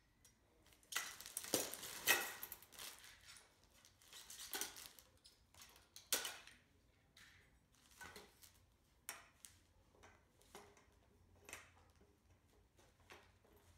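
Irregular clicks, clinks and short rustles as a black wire utility shopping cart's metal frame and its clear plastic wrapping are handled, busiest and loudest in the first few seconds, then scattered light clicks.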